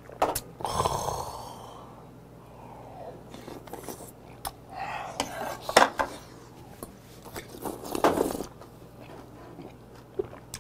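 A small cup clicks down on the table, then a man gives a loud exhale after a shot of soju. Sharp puffing and hissing breaths through his mouth follow, with a few clicks, as he cools a mouthful of food hot enough to nearly scald his palate.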